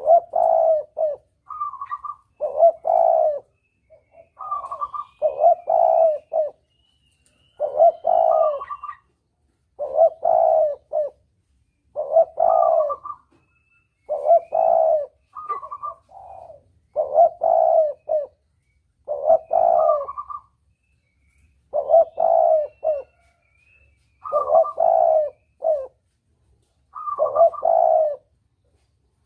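Spotted dove (tekukur) cooing, a recorded lure call: the same phrase repeats about every two and a half seconds, each a higher opening note followed by lower, stronger coos.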